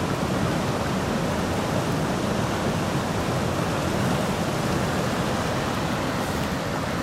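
Fast river rapids rushing close by: a steady, unbroken rush of churning water.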